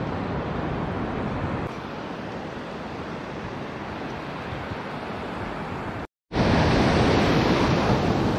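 Steady surf noise from waves breaking and washing up a sandy beach. It cuts out for a moment about six seconds in, then comes back louder.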